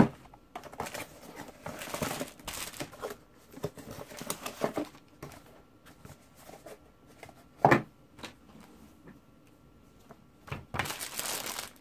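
Cardboard box and plastic packaging of a new digital multimeter being handled and opened: irregular rustling, scraping and sliding of cardboard, with one sharper knock about two-thirds of the way through and denser crinkling of plastic wrap near the end.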